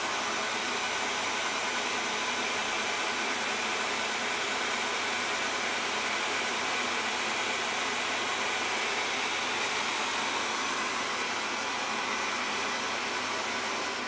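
Wyze robot vacuum running with a steady whir and a thin high whine as it drives itself back to its charging dock after being sent home. The noise eases off right at the end as it reaches the dock.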